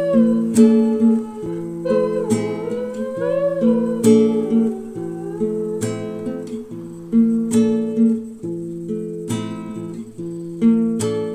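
Background music: an instrumental passage of a pop song, strummed acoustic guitar chords with a gliding melody line over them in the first few seconds, and no singing.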